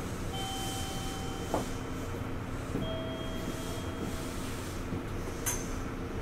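Steady hum inside a Kobe New Transit 3000 series Rokko Liner car, its equipment and air conditioning running. Two long electronic beeps sound one after the other, the second a little lower, and a sharp click comes near the end.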